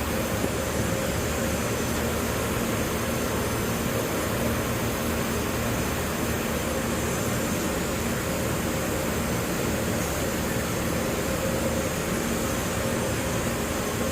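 Steady machine hum over an even hiss, holding the same level throughout with a low tone and a higher tone.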